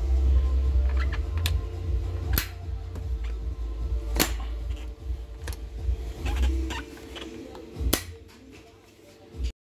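Sharp metallic clicks and clacks from a Krag-Jørgensen rifle's action being worked by hand, about five of them spread out, over a steady low hum.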